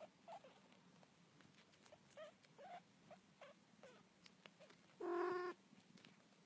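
Faint, scattered little squeaks and clicks from nursing Siamese kittens, then a single short meow, the loudest sound, about five seconds in.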